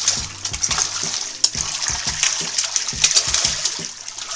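Fish thrashing at the surface of a tank, splashing water hard and continuously as they fight over bread thrown in to feed them; the splashing eases a little near the end.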